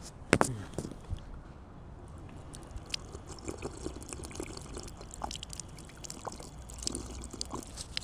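A sharp clack as the metal tap of an outdoor drinking fountain is worked, then the fountain's water jet trickling and splashing with many small drips and clicks while a man drinks from it.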